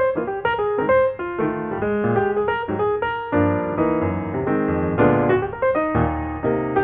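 Background piano music, a quick run of notes moving over several pitches at a steady level.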